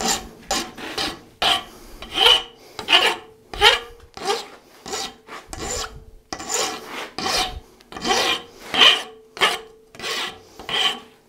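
Hand file rasping across the end of a steel shank, about two strokes a second, chamfering the end before it is threaded for a nut. A faint ring hangs under some of the strokes.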